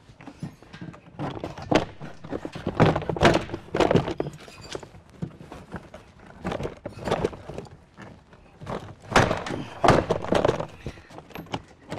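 Irregular thuds, knocks and clicks of a Ford pickup's plastic door trim panel being pried and pulled off by hand, its retaining clips popping loose. The loudest knocks come in two clusters, a few seconds in and again near the end.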